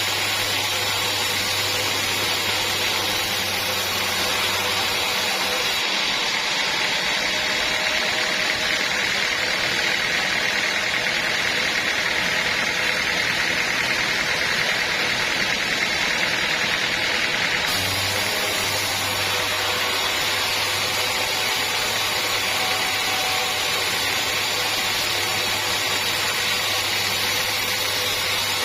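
Sawmill saw running steadily as it cuts through a teak log, a continuous mechanical whirr and rasp. The low hum drops away about six seconds in and comes back near eighteen seconds.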